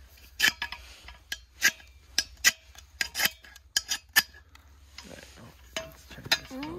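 A steel knife scraped repeatedly along a ferrocerium (ferro) rod to strike sparks: about a dozen short, sharp rasping strikes at an uneven pace, with gaps between the attempts.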